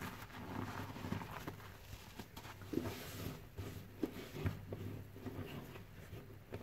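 Gloved hand pressing and squeezing a detergent-soaked sponge through thick suds in a steel sink: wet squelching and crackling foam, with irregular soft clicks, a few louder ones around the middle.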